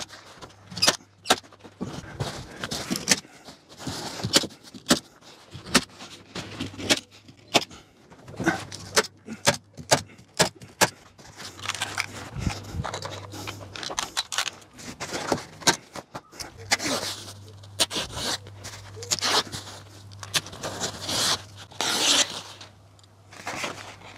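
Hand staple gun firing staples through breathable membrane into a timber shed frame: many sharp clicks at irregular intervals, with the membrane sheet rustling and crinkling as it is folded and handled.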